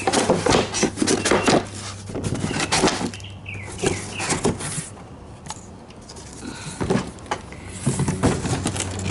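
Knocks, scrapes and rustles of a heavy metal swivel-seat base and its cardboard box being handled and set down. They come thick in the first few seconds, thin out for a while, and pick up again near the end.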